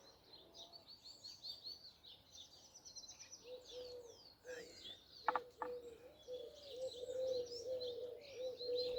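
Small birds chirping and twittering in quick high notes. About halfway through, a lower call starts repeating several times a second and grows louder. Two sharp clicks come just past the middle.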